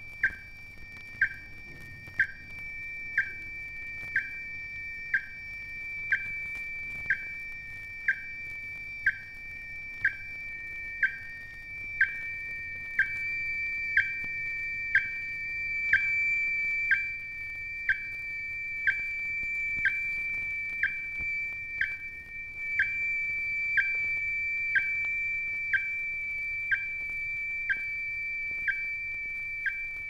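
Phasing pulse of a radio facsimile apparatus: a steady high electronic tone with a short sharp pulse about once a second.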